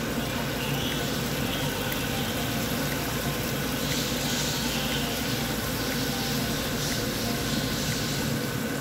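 Kashmiri spiced gravy of water and lemon juice bubbling in a pan over a turned-up gas flame, a steady noisy boil that swells now and then, over a steady low hum.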